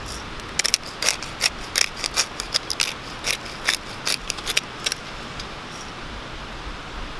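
Small hand-twisted pepper grinder grinding black pepper over raw chicken: a quick run of ratcheting clicks, several a second, that stops about five seconds in.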